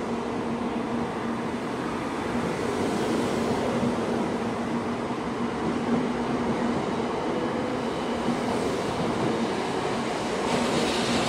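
Tokaido Shinkansen 700 series train moving past the platform at low speed: a steady rolling rumble with a low, even hum, growing slightly louder near the end.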